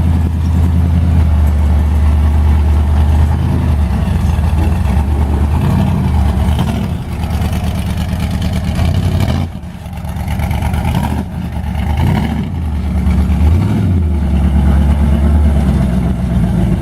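Off-road racing vehicle engines running loudly and revving, the pitch rising and falling several times, with a brief lull about ten seconds in.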